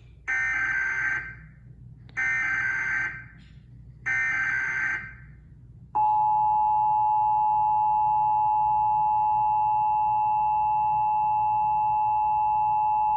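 Emergency Alert System alert tones: three short bursts of warbling SAME header data about two seconds apart, then, about six seconds in, the steady two-tone EAS attention signal (853 and 960 Hz) held at an even level. The header bursts carry the alert's coded data, and the attention signal announces that an emergency alert message follows.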